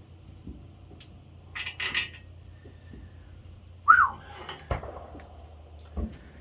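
Metal clinks and clanks from tools and parts being handled on an engine stand, with a few sharp knocks. The loudest knock comes about four seconds in.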